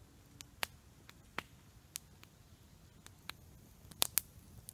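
Wood campfire crackling: a few sharp pops at irregular intervals, two in quick succession about four seconds in, over a faint low background.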